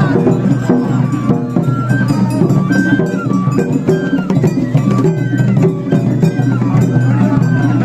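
Japanese festival hayashi music playing continuously: a high flute melody moving in steps over drums and other percussion.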